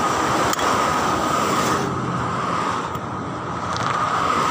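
Road traffic passing on a highway, a steady rush of tyre and engine noise that swells and eases as vehicles go by, with a single sharp click about half a second in.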